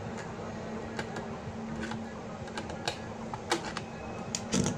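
Irregular small clicks and scrapes of long-nose pliers gripping and turning the lock nut on a plastic wall clock movement, a dozen or so sharp ticks at uneven spacing, the loudest near the end, over a steady low hum.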